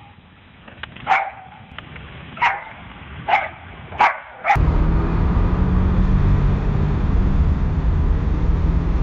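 A dog barks about five times, roughly a second apart. About four and a half seconds in, a loud steady low rumble cuts in and carries on.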